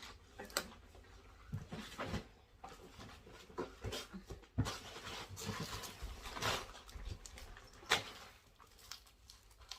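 A dog panting and snuffling, with irregular short rustles and clicks.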